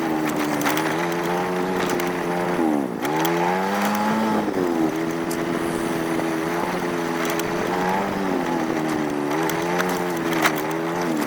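Small engine running under way. Its revs drop sharply about three seconds in, then pick up again, with smaller falls and rises near the end.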